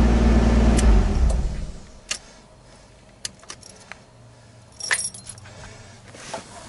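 Car engine idling, then switched off about a second and a half in and winding down. Afterwards a few sharp clicks and a short jangle of keys at the ignition.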